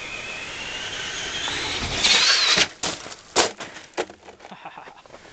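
Traxxas Summit RC monster truck's electric motor whining, rising in pitch as it speeds in and loudest about two seconds in, then the truck crashes and tumbles over in the snow with three sharp thuds and a few lighter knocks.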